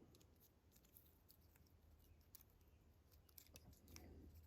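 Near silence with faint, scattered small clicks and ticks from small plastic parts and wires being handled, as the wires are threaded through holes in a 3D-printed switch housing.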